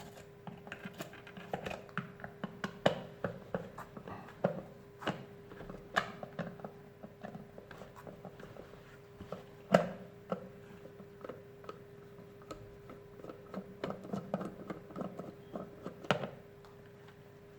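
Irregular small clicks and taps of hands and a screwdriver working on an electric kettle's plastic body while taking it apart, with a faint steady hum underneath.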